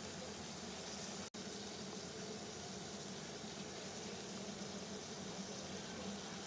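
Water at a steady boil, bubbling and hissing evenly, with a split-second dropout about a second in.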